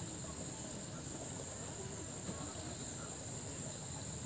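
Steady, high-pitched drone of an insect chorus, unbroken, over a low background rumble.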